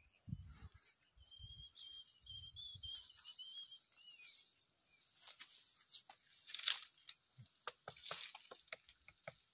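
Dry straw and twigs crackling and snapping in a quick irregular run of sharp snaps, loudest about two-thirds of the way through, as a person walks over and handles dry rice stubble and sticks. Before that, a bird calls faintly with a wavering high note for the first few seconds.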